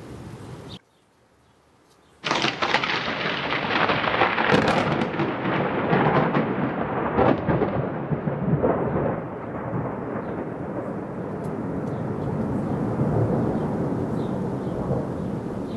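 Close thunderclap: after a brief dropout, a sudden loud crack about two seconds in, followed by sharp crackles and a rumble that slowly fades over the next ten seconds, over steady rain.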